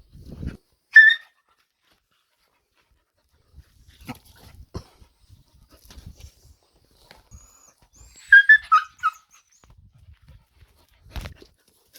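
Puppy giving short, high yelps: one about a second in, then a quick run of four or five near eight seconds. A sharp knock follows near the end.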